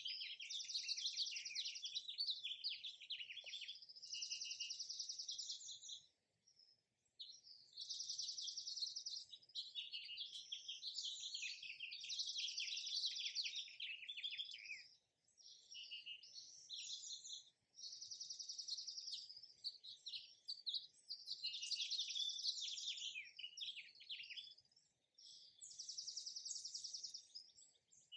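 Songbirds chirping and singing: runs of rapid, high-pitched chirps and trills in phrases of a few seconds, with short pauses between.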